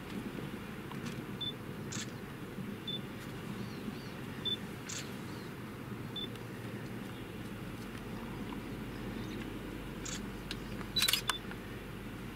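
Camera shutter clicks: single clicks a few seconds apart, with a quick burst of several about eleven seconds in. Brief high chirps come every second or two over a steady low rumble.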